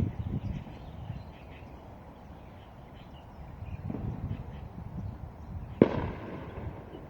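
Low outdoor rumbling in uneven bouts, with one sharp, loud bang about six seconds in.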